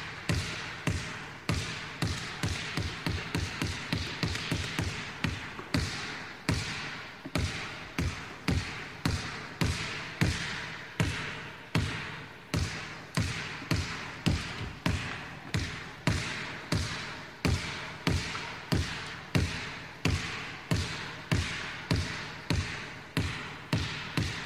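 Basketball dribbled on a court: repeated sharp bounces, about two a second, in an uneven rhythm.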